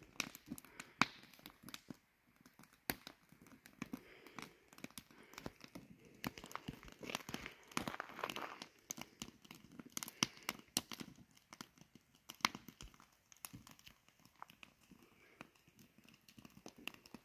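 Campfire of split wood burning and crackling, with irregular sharp pops and snaps.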